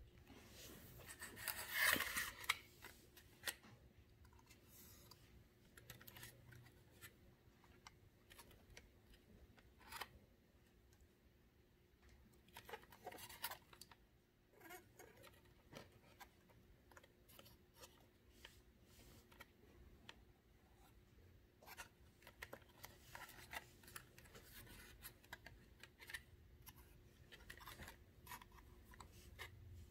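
Fingers handling a cardboard 3D puzzle model: faint scratching, rubbing and light clicks of card against card and skin, with a louder scratchy rustle about two seconds in.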